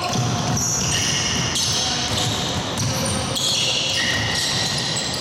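Basketball game sounds in a sports hall: a ball bouncing on the wooden court and players' footsteps, with high squeaky tones over them.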